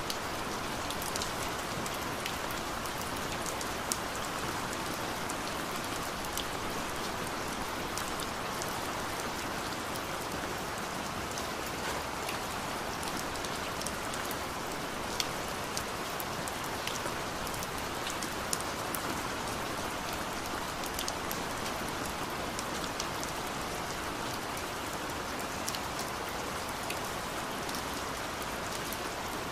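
A steady, even hiss with scattered faint ticks through it.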